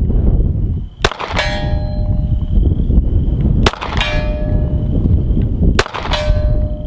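Three 9mm pistol shots from a Mossberg MC1 subcompact, a couple of seconds apart, each answered a split second later by the clang of a distant steel target being hit, ringing and fading out.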